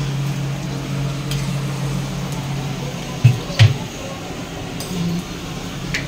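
Kitchen work with steel utensils: a steady low hum, a few light clinks, and two dull thumps in quick succession about three seconds in, after which the hum fades.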